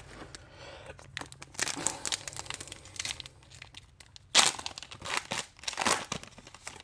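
Foil wrapper of a Goodwin Champions trading-card pack being crinkled and torn open by hand, an irregular run of crackles with the loudest rips about four and a half seconds in and again near six seconds.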